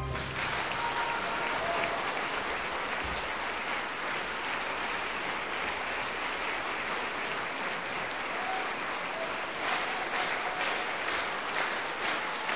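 Concert audience applauding, a steady wash of clapping that carries on unbroken.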